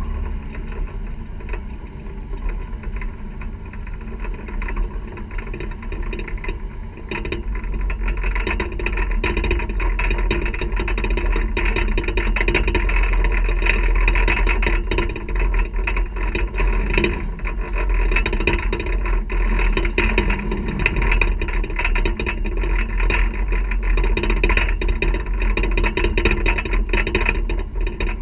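Boat motor running at low speed while the boat manoeuvres in to a dock, with a steady low hum that grows louder about seven seconds in.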